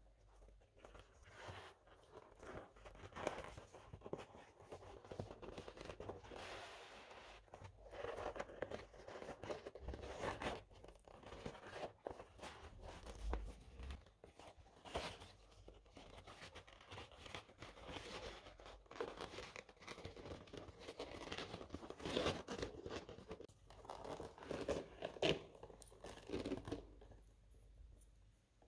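Stiff leather bag panel rustling and crinkling as it is handled and gathered, with a leather drawstring being pulled through its punched holes; irregular, with louder crackles now and then.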